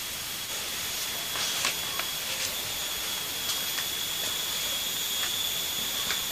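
Steady background hiss with a scattering of faint taps: flip-flop footsteps on a dirt floor and a plastic jerrycan being picked up.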